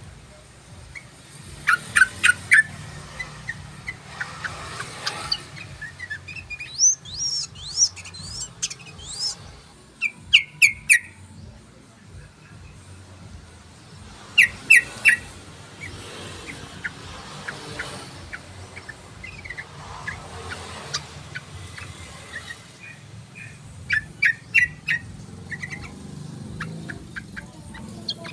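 Yellow-vented bulbul song: short bursts of three or four quick, bright notes repeated every few seconds, with a longer run of rapid rising notes about a third of the way in.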